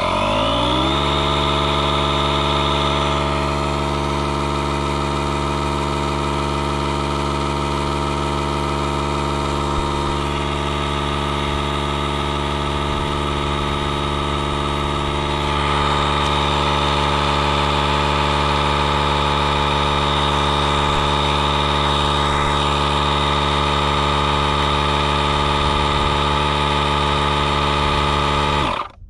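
DeWalt 20V cordless air compressor's motor and pump running steadily as it inflates a lawn tractor tire, spinning up with a rising whine at the start and cutting off suddenly near the end. The pump is working against a valve that the owner thinks is partly clogged with Slime sealant, holding back the inflation.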